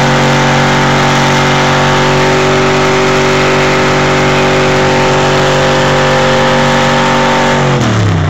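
Pickup truck engine held at steady high revs as the truck churns slowly through a mud bog pit, then the revs drop sharply near the end.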